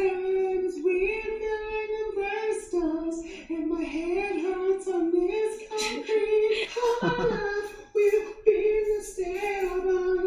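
A woman singing a slow melody in long held notes.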